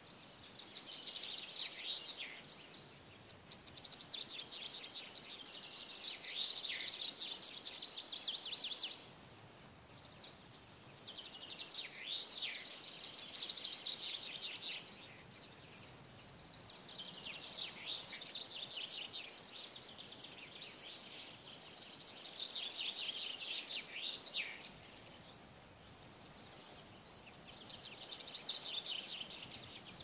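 A songbird singing, repeating a quick trilling phrase of two to three seconds about every five seconds. Several phrases end in a short downward flourish.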